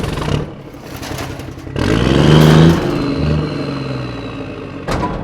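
A small engine running, revving up about two seconds in and settling back, with a sharp click near the end.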